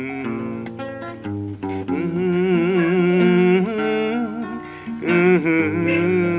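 Acoustic guitar playing the opening of a song, with a man's voice holding long, slightly wavering notes over it.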